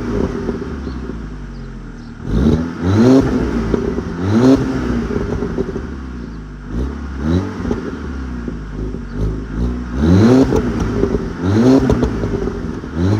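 Turbocharged Audi A4 engine blipped repeatedly from idle, about eight quick revs that climb and drop back. Its exhaust pops and crackles as each rev falls off.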